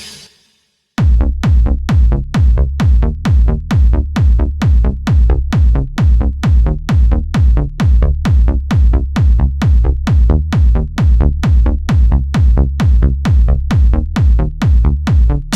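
Electronic Italo dance music: a swelling noise sweep fades out right at the start, there is about a second of silence, then a steady four-on-the-floor drum-machine kick with a pulsing bass line comes in.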